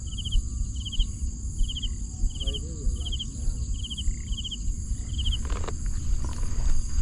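Insects chirping in the open: a short trilled chirp repeats about every three-quarters of a second over a steady high-pitched insect drone, with a low rumble underneath. The chirping stops about five seconds in, and a few rustling clicks follow.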